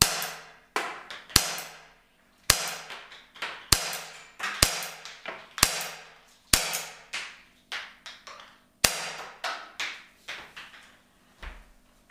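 A string of about nine sharp cracks from a CO2-powered Umarex T4E Glock 17 Gen5 .43-calibre training pistol, fired semi-automatically at uneven intervals of about a second. Each crack is followed by a smaller tick as the ball hits a pumpkin.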